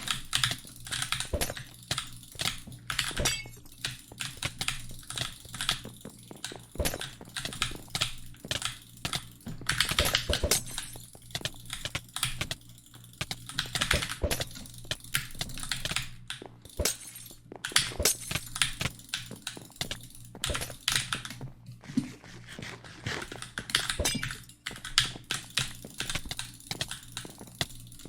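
Rapid, irregular clicking, several sharp clicks a second, coming in dense runs with short gaps, over a faint steady low hum.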